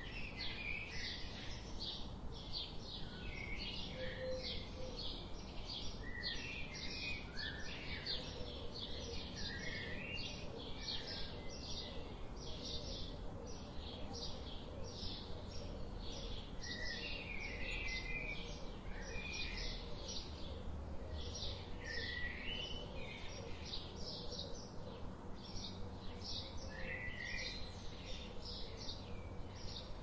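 Birds chirping: short high chirps repeat steadily about two or three times a second, with lower chirping notes mixed in now and then, over a steady low background noise.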